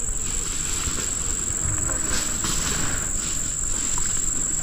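Insects shrilling in one steady high-pitched tone that never breaks, with faint rustling of grass underneath.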